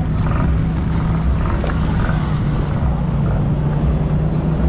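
ATV engine running steadily with a constant low hum.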